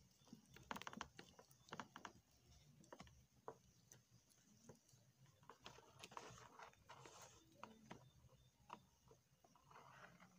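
Faint handling noise: small clicks and scratching as fingers twist fine stranded wire around the metal connector of an RF modulator can.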